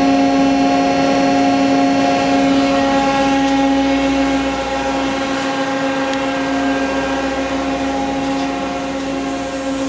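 Powered-up Miyano BND-34S CNC turning center giving a steady machine hum: one strong low tone with a ladder of higher tones over a rushing haze, easing off slightly about halfway through.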